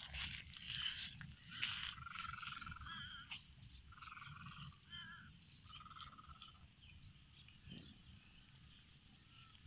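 Frogs croaking in a flooded, weedy wetland: several short, faint, rattling calls between about two and seven seconds in, after some light crackling in the first two seconds.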